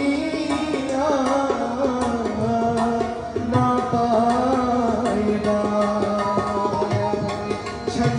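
Live Kashmiri music: a male singer over tabla drumming and a steady held-note accompaniment.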